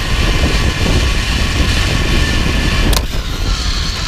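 Wind rushing and buffeting over the microphone while a zip-wire trolley runs along the steel cable at speed, with a steady whine. About three seconds in there is a sharp clack and the rush drops off as the rider slows into the landing.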